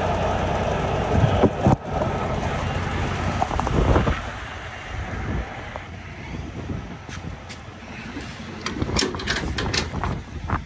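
Steady running noise of the idling semi truck with a couple of sharp clunks, dropping quieter after about four seconds. Near the end come scattered metallic clicks and rattles as the trailer's landing-gear crank handle is unhooked and taken in hand.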